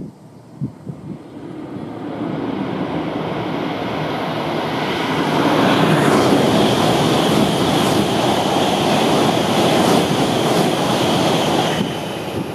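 Electric multiple-unit train coming out of a tunnel and passing close by: its wheels and running gear build over a few seconds, then stay loud with a steady high whine and a few clicks from the wheels, and fall away near the end as it goes by.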